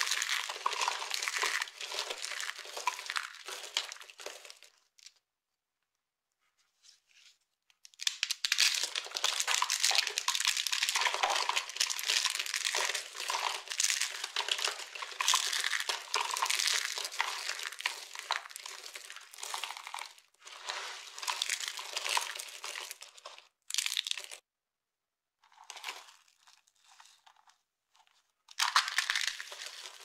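Dry carved soap pieces and curls crushed and crumbled in bare hands: dense crackling crunches. They stop for a few seconds about five seconds in, and again for short spells near the end.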